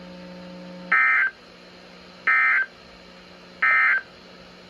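Emergency Alert System End-of-Message signal: three short bursts of SAME digital data tones, each about a third of a second long and about 1.3 seconds apart, marking the end of the warning.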